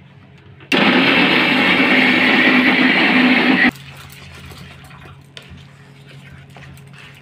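Electric mixer grinder running loud and steady for about three seconds, grinding ginger and spices to a coarse paste in its small stainless-steel jar, switching on and off abruptly. Faint scrapes and clinks of a spoon beating urad dal batter in a steel plate follow.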